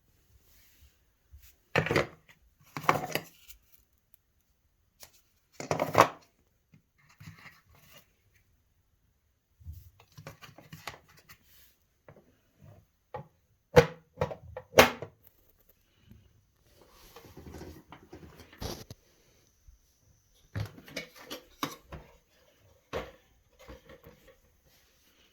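Hard objects handled and knocked together: irregular knocks and clatters with quiet gaps between, the loudest pairs about 2 to 3 seconds in and near the middle.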